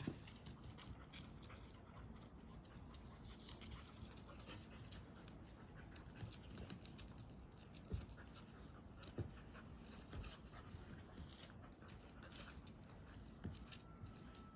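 Quiet outdoor ambience with faint dog sounds and a few soft knocks.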